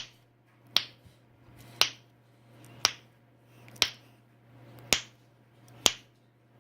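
Fake knuckle cracking: a finger flicked down quickly against hands clasped under the chin, making sharp cracks. There are six or seven, about one a second.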